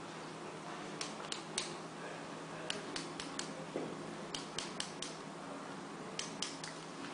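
Sharp light clicks in quick groups of three or four, repeated four times: a finger flicking a plastic syringe barrel with its needle in an inverted vial, to knock air bubbles up out of the drawn dose.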